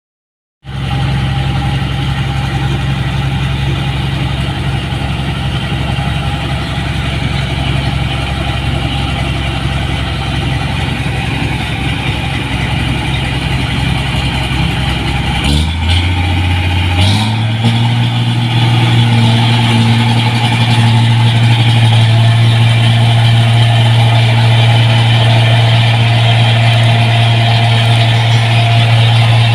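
New Holland 1545 rice combine harvester engine running steadily; about halfway through its note steps up and holds at a higher speed, the machine throttled up.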